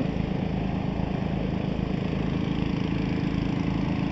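A small engine driving the mining pumps runs steadily, over muddy water and gravel rushing down a wooden sluice.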